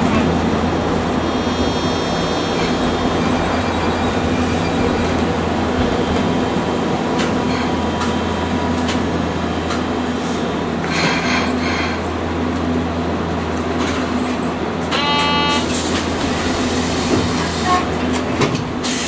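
Hiroshima Electric Railway 800-series tram running between stops, heard from inside the car: a loud, steady low rumble of motors and wheels on the track. A short ringing tone sounds about fifteen seconds in.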